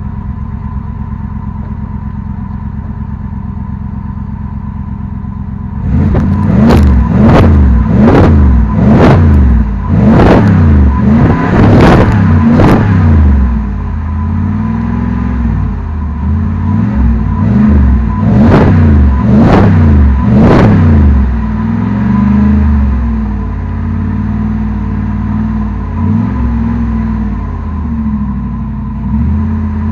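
Cadillac Seville STS's 4.6-litre Northstar V8 running with its rear mufflers removed, so only the catalytic converter and middle muffler are left in the exhaust. It idles for about six seconds, is then revved in a quick run of short blips about one a second, settles back to idle, gets three more blips, and idles again.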